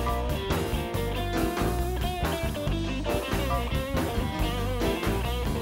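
Instrumental outro music: electric guitar over bass and drums, with some bent, wavering guitar notes about two seconds in.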